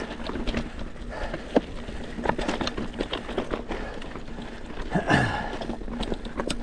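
Mountain bike riding over a rocky technical trail: irregular knocks, clicks and rattles from the bike and its tyres striking rock, over a low rumble.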